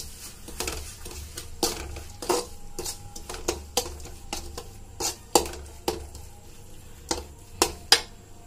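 Perforated metal spatula scraping and knocking against a metal kadai while stirring a thick masala. The knocks are irregular, roughly two a second, some with a short metallic ring.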